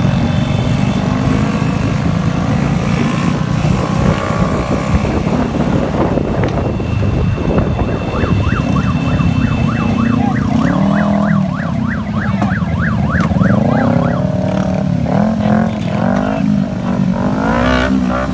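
Motorcycles running in close traffic, with engine and road rumble throughout. About eight seconds in, a fast warbling siren sounds for a few seconds. After that, slower rising-and-falling tones come again and again until the end.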